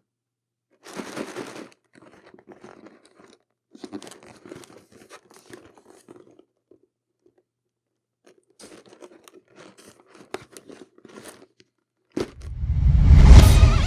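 Blind bag packaging being handled and torn open, crinkling and tearing in short bursts with pauses. About twelve seconds in, a loud rising swell takes over, leading into music.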